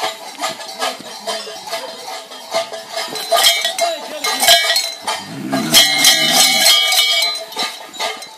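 Cowbells clanging in a steady rhythm, about two to three strikes a second, with several bells ringing together and louder in the middle.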